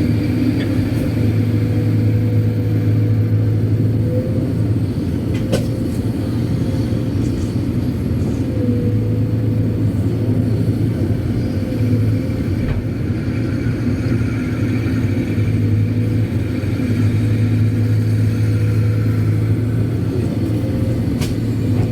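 Kobelco SK200-8 Super X excavator's diesel engine running steadily under working load while digging and loading laterite. A thin hydraulic whine above it rises and dips slightly as the load changes.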